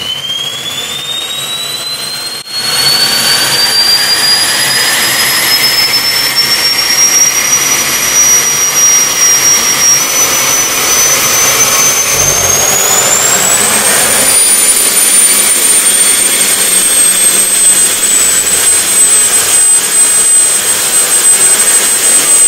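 Small experimental turbine engine for a RotorWay helicopter starting up on a test stand. Its whine climbs steadily in pitch, and about two and a half seconds in it jumps sharply in loudness as it lights. It climbs again briefly around twelve seconds in, then settles into a steady high whine.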